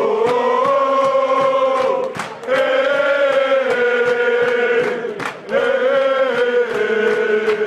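Crowd of Manchester United supporters singing a chant together, many voices in unison holding long notes in three phrases, with short breaks between them.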